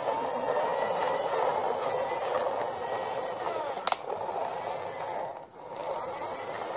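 Plastic toy fire truck's wheels rolling on a hard floor as it is pushed by hand, a steady rolling noise with a sharp click about four seconds in and a brief drop about five and a half seconds in.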